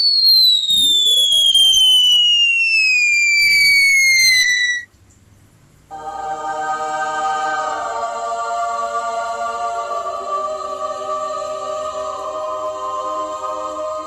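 Cartoon sound effects played in turn. First comes a falling whistle that glides steadily down in pitch for about five seconds. After a short gap, a held musical chord of many tones sustains for about eight seconds.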